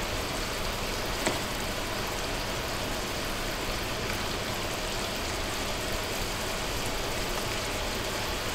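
Dakgangjeong glaze with peanuts sizzling steadily in a frying pan as fried chicken wings are laid in and turned to coat. One small click about a second in.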